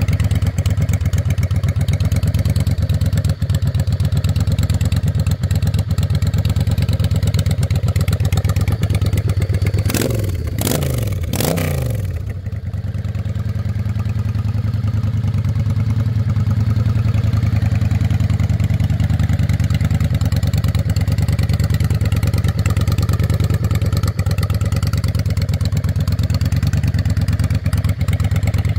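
Yamaha Dragstar 650 bobber's air-cooled V-twin idling through heat-wrapped custom exhaust pipes, with an even, pulsing beat. About ten seconds in, the throttle is blipped three times in quick succession, then the engine settles back to idle.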